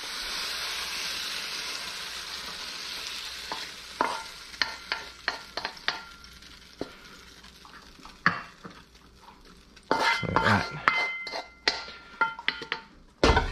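Stir-fried beef and broccoli sizzling in a wok, the sizzle fading over the first few seconds. Then a wooden spatula scrapes and knocks against the wok as the food is pushed out onto a plate, with a cluster of louder knocks near the end.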